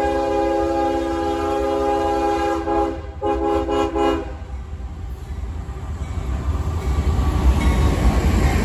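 CSX freight locomotive's multi-chime air horn held in a long blast, with a short break about three seconds in and a final short blast that stops about four seconds in, played as a horn show by the engineer. Then the rumble of the passing freight train, growing louder near the end.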